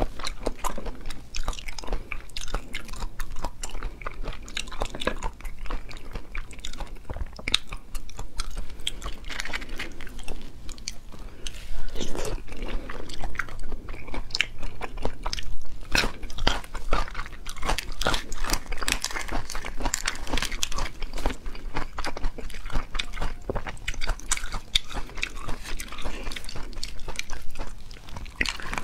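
Close-miked eating sounds from a raw red prawn: wet chewing, sucking and crunchy bites, with a dense run of small clicks and crackles.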